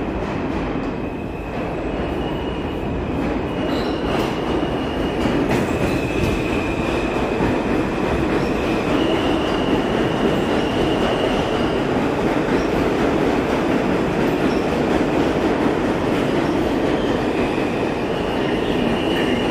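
R160-series New York City subway train running past the platform: a loud, steady rumble of the cars on the track, with a high-pitched squeal of the wheels that comes and goes.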